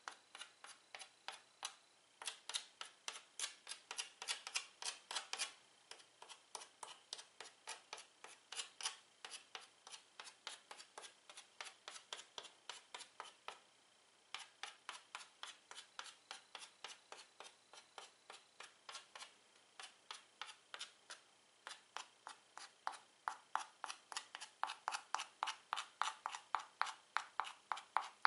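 Chalk tapping and stroking on a black chalkboard as stars are dotted in: a quick, even run of sharp little taps, about four a second, with a few short pauses.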